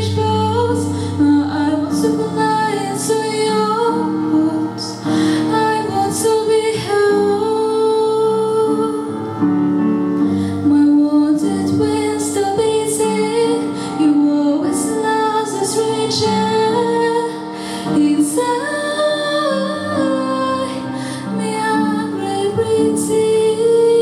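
A woman singing a slow song over instrumental accompaniment, with long held notes.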